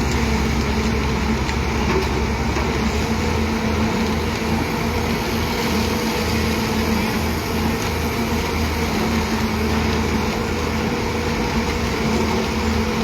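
Heavy machinery engine running steadily, an even low hum that does not change.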